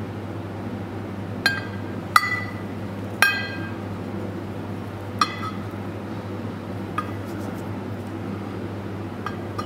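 Light metal clinks, about six of them at irregular intervals with a short ring after each, as the piston rod assembly is guided into the pneumatic cylinder barrel and knocks against it. A steady low hum runs underneath.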